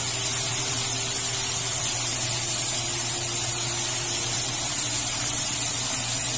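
Flour-coated chicken drumsticks deep-frying in hot oil: a steady sizzling hiss, with a steady low hum underneath.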